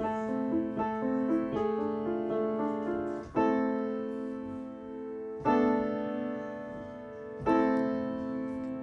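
Background piano music: a run of short notes, then three held chords struck about two seconds apart, each fading away.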